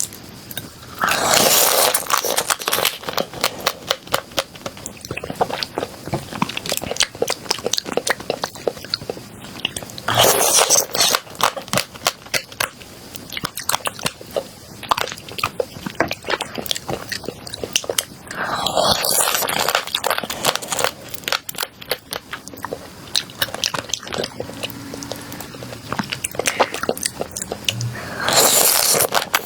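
Close-miked crunching and chewing of spicy crab pieces: four loud crunching bites spaced about nine seconds apart, with fast crackling chews in between.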